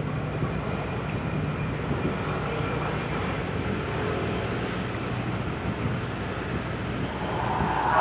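Steady low rumble and wash of a large bulk carrier passing close by, with a faint low hum under it.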